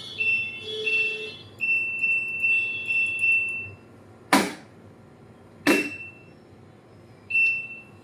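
IFB washing machine's control panel beeping: a few electronic tones, then a run of about five short beeps, two sharp knocks about a second and a half apart, and one more beep near the end.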